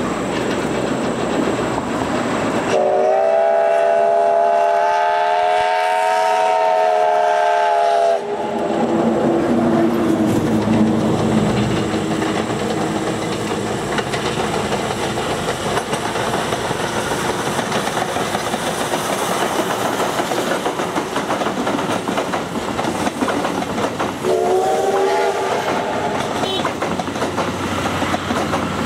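Double-headed steam train, a JNR Class C56 and a C57 steam locomotive, running past with its coaches. A steam whistle sounds a chord of several notes for about five seconds starting about three seconds in. A second, shorter whistle comes near the end.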